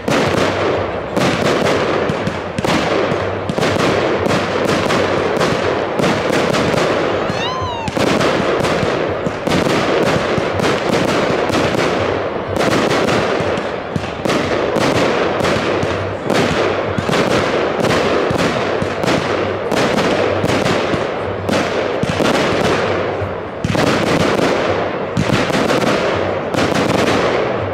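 Firework batteries firing in rapid, continuous volleys of shots and bursting stars, with a short whistle about eight seconds in.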